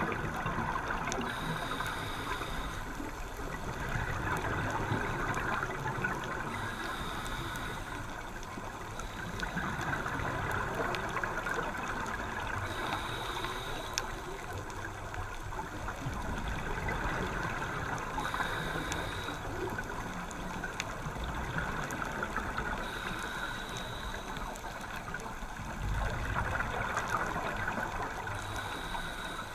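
Scuba diver's regulator breathing underwater: a short hissing inhale with a thin whistle comes about every five seconds, six times, and between them the exhaled breath goes out as longer runs of gurgling bubbles.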